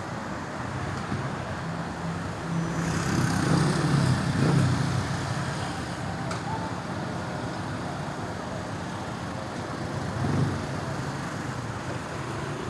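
Road traffic running steadily, with a vehicle passing close by about three to five seconds in and a smaller swell near the end.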